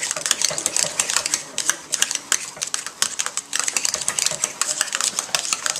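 Boiled potatoes being mashed by hand in a pot with milk: rapid, irregular clacks of the utensil striking the pot, several a second.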